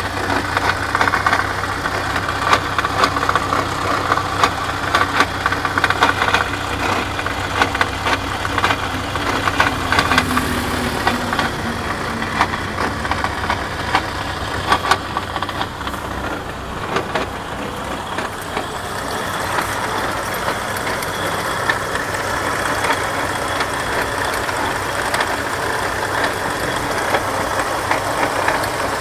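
Vehicle running with repeated irregular knocks from the rear axle differential (final drive). The knocks are thickest in the first half and ease off after about eighteen seconds, leaving a steadier running noise.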